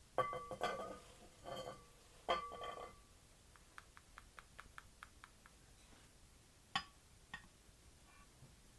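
Faint clinks and taps from dishes or utensils being handled. A few ringing clinks come in the first seconds, then a quick run of small ticks, about five a second, and two sharper clicks near the end.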